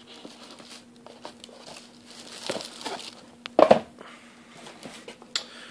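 Clear plastic bag crinkling and rustling as it is handled and opened, in uneven bursts, loudest about halfway through.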